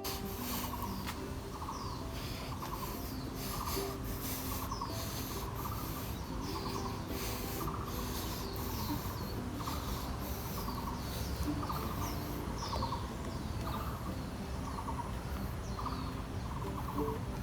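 Birds calling: one bird repeats a short trilled call about once a second, while others give quick high chirps, over a steady low rumble.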